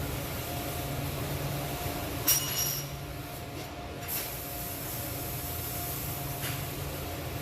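Steady machine hum in a welding shop, with a single ringing metal clink a little over two seconds in.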